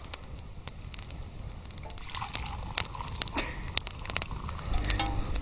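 Campfire crackling with scattered sharp pops, while hot tea is poured from a billy pot into a stainless steel mug in the second half. A low rumble comes in near the end.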